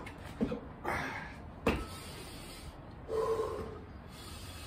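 A man breathing hard during burpees, with sharp exhales and a longer voiced huff a few seconds in. One sharp smack comes just under two seconds in.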